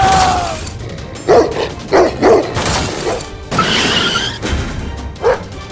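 A dog barking in short barks, about three in quick succession and one more near the end, over background music.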